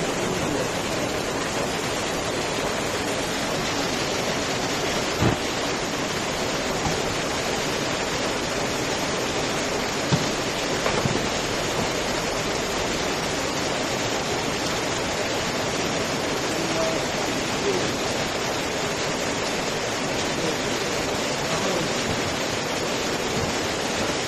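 Steady hiss of a heavy downpour and muddy floodwater running down a road. A sharp knock stands out about five seconds in, and another about ten seconds in.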